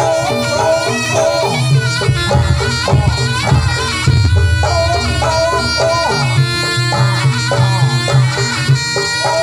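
Javanese jaranan accompaniment music playing live: a nasal reed trumpet (slompret) carries a wavering, ornamented melody over steady lower notes and percussion strokes.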